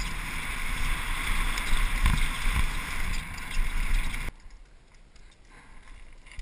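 Wind rushing over the camera microphone and tyres rumbling over a dirt trail as a downhill mountain bike descends at speed, with low thumps from bumps. The noise cuts off abruptly about four seconds in, leaving a faint rustle with light ticks.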